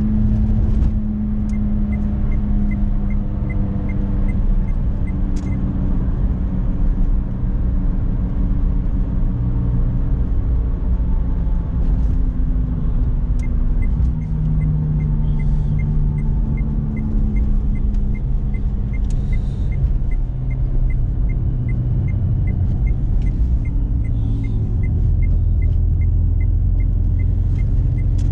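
Renault Clio Symbol's engine and tyre rumble heard from inside the cabin while driving, the engine note rising and falling with speed and gear. The turn-signal relay ticks about two and a half times a second in two stretches, the longer one through the second half.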